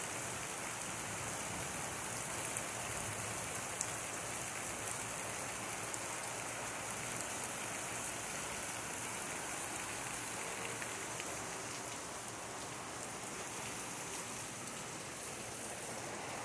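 Heavy rain falling steadily on wet pavement and roofs, a constant hiss with now and then a sharper drop tick.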